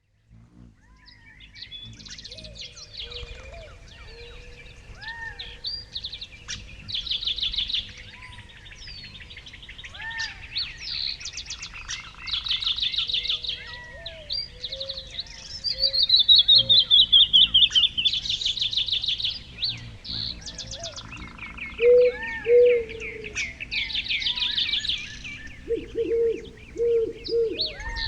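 Several songbirds singing and calling at once: rapid trills and chirps, with a loud, fast run of notes falling in pitch a little past the middle.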